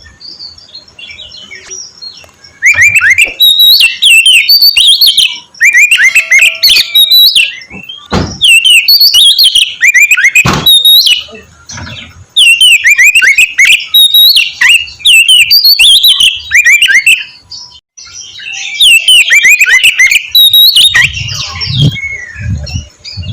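Oriental magpie-robin (kacer) singing a loud, vigorous song in five phrases of quick, varied whistles and harsh notes, with short pauses between them. This is the combative song used to provoke rival magpie-robins. Two dull thuds come about 8 and 10.5 seconds in.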